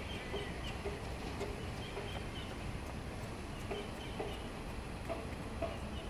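A series of short animal calls at an uneven pace, a few every second, over a steady low rumble.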